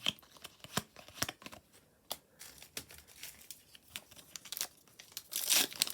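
Panini Adrenalyn XL trading cards being handled, with soft clicks and slides as cards are shuffled through. Near the end a foil booster pack crinkles loudly as it is torn open.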